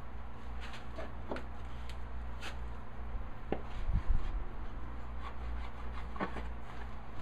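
Scattered light wooden clicks and taps of hand tools and a board being handled on a workbench, with one heavier thump about four seconds in.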